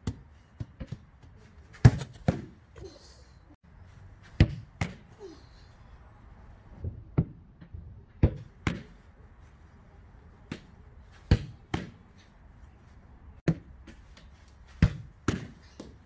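A football repeatedly striking a wooden garden fence and goalkeeper gloves during solo catching drills: sharp ball thuds, mostly in pairs about half a second apart, roughly every three seconds.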